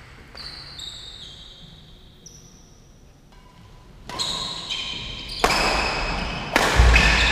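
Badminton doubles play: sneakers squeak high on the court floor, then about four seconds in a rally starts, with sharp racket strikes on the shuttlecock, footfalls and more squeaks, all getting louder.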